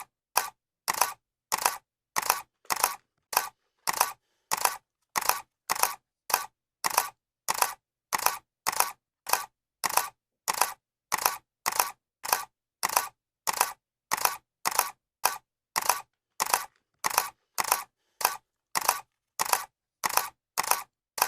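Camera shutter click sound effect, repeated at an even pace of nearly two clicks a second. Each click is a quick double snap.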